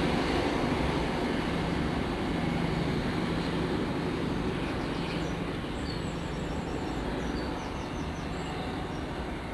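Paxman Valenta V12 diesel of an HST class 43 power car working hard, a steady engine note that slowly fades as the train draws away.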